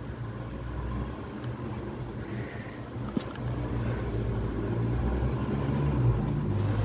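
Low steady mechanical hum and rumble, getting louder over the last few seconds, with one faint click about three seconds in.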